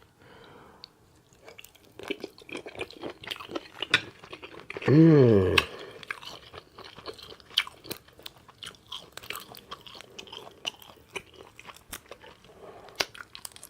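Close-up open-mouth chewing with many wet lip and mouth smacks. About five seconds in, one short vocal sound falling in pitch cuts through the chewing, the loudest thing heard.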